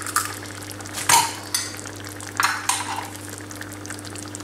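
Tomato sauce with shrimp simmering and sizzling in a small clay tagine, with fine crackling under a low steady hum. A sharp tap about a second in and a short crackly rasp near the middle as an egg is cracked open over the dish.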